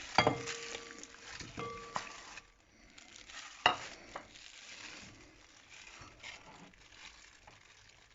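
A kitchen bowl knocked sharply about four times in the first few seconds, the knocks ringing briefly, then faint handling and rustling as the raw chicken is dealt with.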